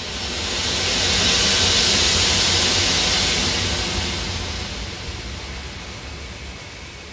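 Ambient electronic sound composition: a swell of rushing, hiss-like noise that rises over about the first second, holds, then fades away over the next few seconds, over a steady low rumble.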